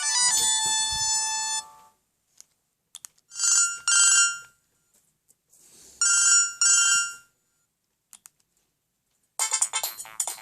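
Siemens SL55 mobile phone playing its original polyphonic ringtones: a busy melody ends about two seconds in, then a ringtone of two quick double beeps, like a classic telephone ring, sounds twice about three seconds apart, and a fast new tune starts near the end.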